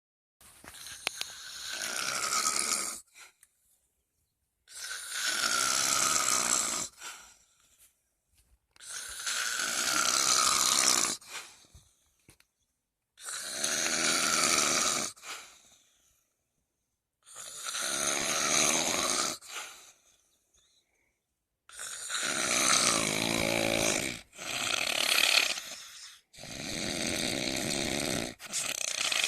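Snoring in a steady sleep rhythm: long snores, each two to three seconds, repeating about every four seconds, coming closer together near the end.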